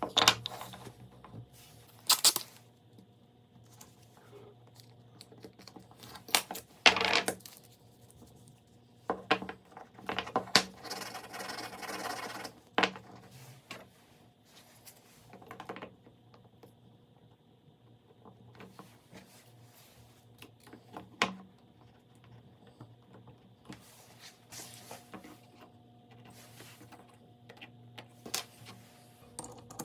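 Wood and hand tools being handled on a workbench: scattered sharp knocks and clicks, with a longer rough noisy stretch of about two seconds a third of the way in, over a low steady hum.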